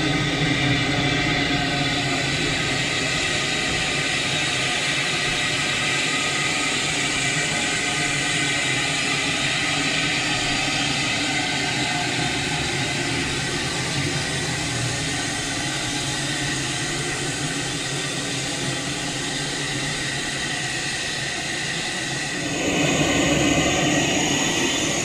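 Baldwin Ten-Wheel (4-6-0) steam locomotive standing in steam: a steady hiss with a few faint steady tones. It gets somewhat louder about 22 seconds in.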